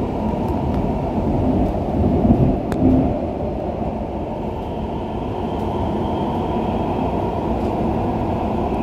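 Dubai Metro Alstom train running underground, heard from inside the car as a steady rumble of wheels on rail, with a louder swell about two to three seconds in.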